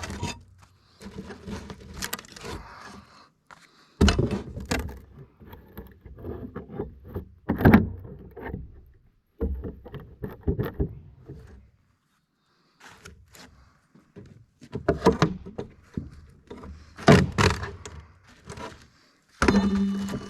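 Old gutter and rotted wooden fascia being torn off a cabin roof edge: a run of sudden knocks, thuds and clattering, with stretches that stop and start abruptly.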